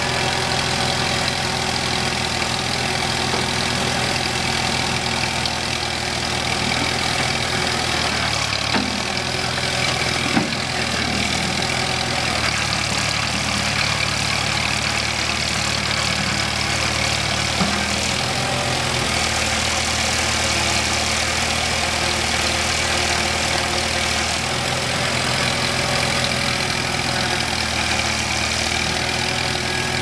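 Allis-Chalmers I40 backhoe loader's four-cylinder gas engine running steadily near idle, its note shifting a few times as the loader bucket is worked up and down. A few light knocks come through partway in.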